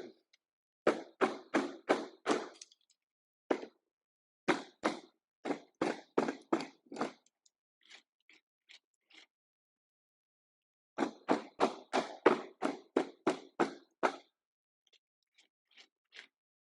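Hammer blows knocking out the waste wood between saw kerfs to clear a half-lap joint, struck about three times a second in runs of four to eight with short pauses and a few lighter taps between.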